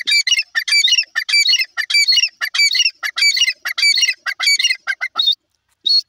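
Grey francolin (Indian grey partridge) calling: a fast run of loud, harsh, repeated notes that stops about five seconds in, followed by one more short note near the end.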